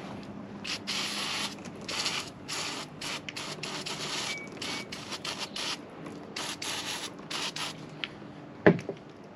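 Rag wiping and rubbing the fuel filter housing clean, many short irregular scrubbing strokes, with a sharp knock near the end.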